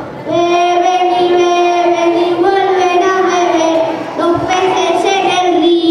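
Schoolchildren singing a Christmas carol in unison, holding long notes, with a new phrase starting every couple of seconds.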